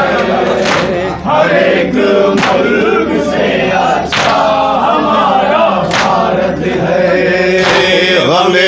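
A group of men chanting an Urdu salaam refrain in unison through a microphone, in long drawn-out melodic lines. Five sharp, evenly spaced slaps keep time under the chant: hands beating on chests in matam.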